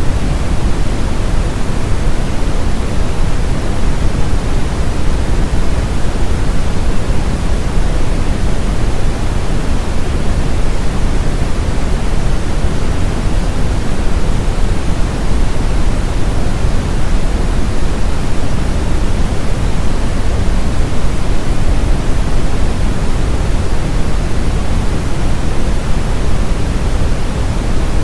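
Steady brown noise: a continuous, even rumbling hiss, strongest in the low end and fading towards the treble, played to mask tinnitus.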